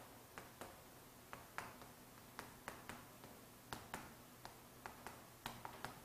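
Chalk writing on a chalkboard: faint, irregular sharp taps and short scrapes as each stroke is made.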